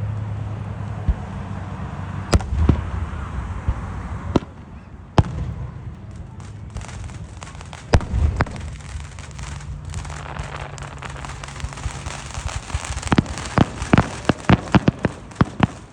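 Fireworks: a few separate sharp bangs several seconds apart, then a rapid string of crackling pops near the end.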